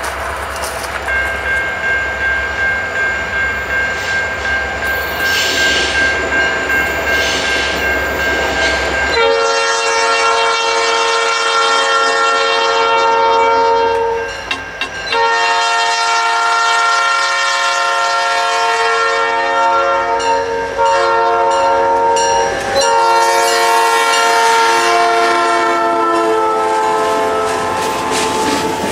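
Approaching diesel freight locomotives rumble, then the lead locomotive's air horn sounds four blasts, two long, one short and one long: the standard grade-crossing signal. Near the end the locomotives reach the microphone and the wheels begin to clack over the rail joints.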